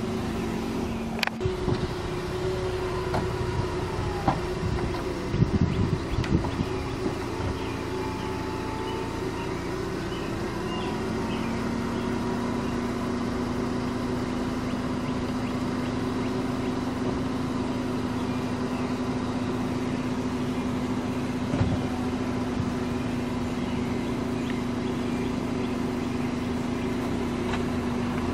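Volkswagen Eos's power-folding hardtop retracting, with a steady low hum beneath. There are several clicks and clunks in the first few seconds as the roof mechanism unlatches and starts to move, then a steady motor hum from about a third of the way in while the roof panels fold back.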